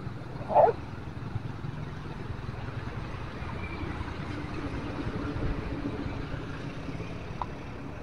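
Street traffic: cars and motor scooters passing with a steady engine rumble, one vehicle growing louder in the middle and then fading. A brief sharp sound about half a second in stands out as the loudest moment.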